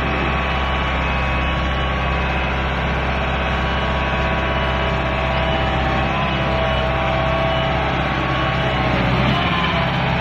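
Tracked smoke-exhausting fire-fighting robot running steadily as it drives and turns, its machinery making a continuous drone with a few faint whining tones on top.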